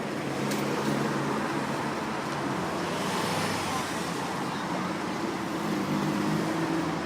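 Street traffic with an old Škoda trolleybus going past: an even rush of tyre and road noise over a steady low hum, swelling about three seconds in.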